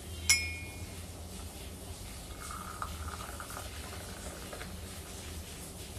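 Steel kitchenware clinks sharply with a brief ring about a third of a second in. Hot tea is then poured from a steel saucepan through a tea strainer into a ceramic mug, a trickle of liquid lasting a little over a second around the middle.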